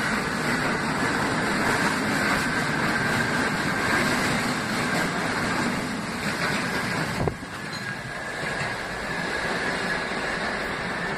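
R68-series New York subway train running past the platform: a steady, loud rumble and rattle of cars on the rails. About seven seconds in, the sound drops off sharply as the last car clears, leaving the quieter sound of the train receding into the tunnel.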